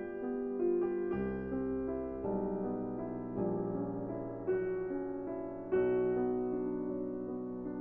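Background music: a soft piano or electric piano playing slow sustained chords and notes, each new chord struck about once a second.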